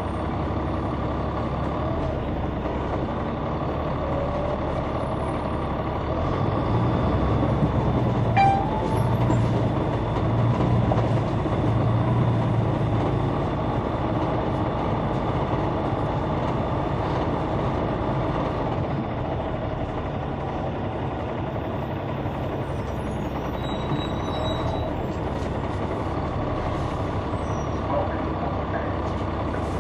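Inside the cabin of a 2004 Neoplan AN459 articulated bus, its Caterpillar C9 ACERT diesel engine running. It grows louder from about six seconds in, with a rising whine, then settles back to a steadier drone after about thirteen seconds. A single click comes about eight and a half seconds in.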